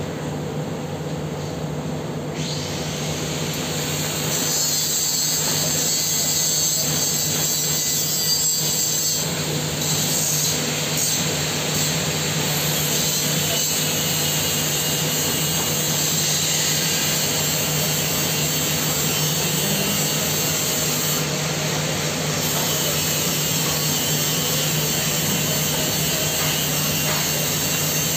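TIG welding arc on a steel pipe socket joint, a steady hiss and buzz that comes in a few seconds in and holds, over a steady low hum.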